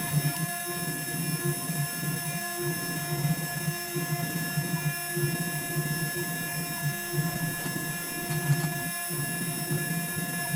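CNC router running while carving foam board: a steady multi-tone machine whine from the spindle and motors over an uneven low hum.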